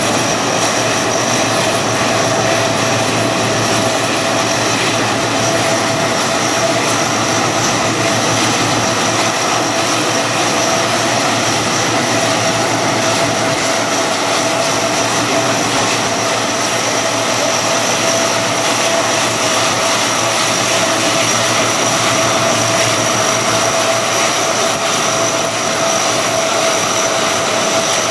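Lockheed C-130 Hercules's four turboprop engines running steadily, a continuous loud drone with a steady high whine.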